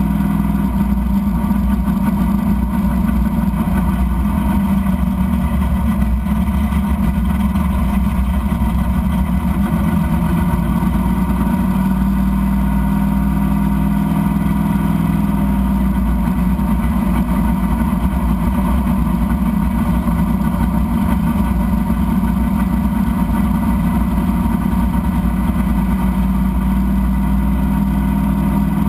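Drag car's engine idling steadily, heard from inside the cabin, loud and even with only small shifts in pitch.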